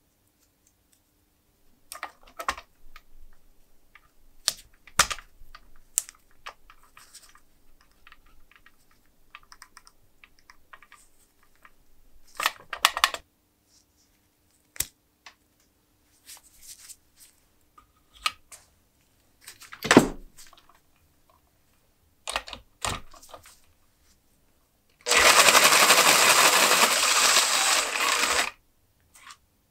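Small metal clicks and knocks as parts of a Boston hand-cranked pencil sharpener are handled and fitted, then, near the end, a power tool spinning the sharpener's mechanism runs steadily for about three seconds and stops abruptly, the loudest sound.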